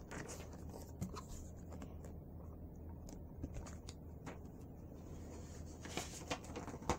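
Picture book being handled and its pages turned, giving scattered soft rustles and light taps, the sharpest near the end, over a steady low hum.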